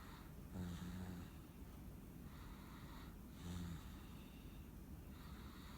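Steady snoring during sleep: two snores about three seconds apart, each a short low-pitched snort, with breathy exhales between them.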